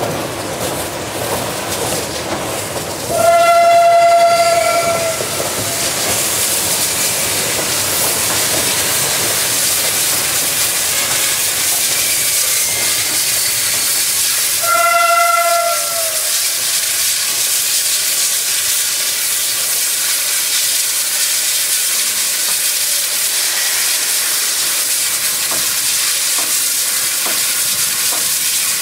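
China Railways QJ class 2-10-2 steam locomotive blowing its steam whistle twice, a long blast about three seconds in and a shorter one near the middle, each sagging in pitch as it ends. Between and after the blasts, a steady hiss of escaping steam, with the rumble of the moving train at the start.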